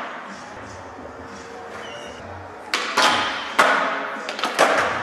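Skateboard wheels rolling on a smooth concrete floor. About halfway through comes a run of sharp wooden clacks and thuds from the board being popped and landed.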